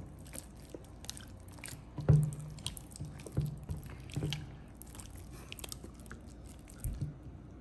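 Large mass of sticky clear slime being stretched and kneaded by hand in a glass dish, giving wet squelches and scattered sticky pops. The loudest pop comes about two seconds in.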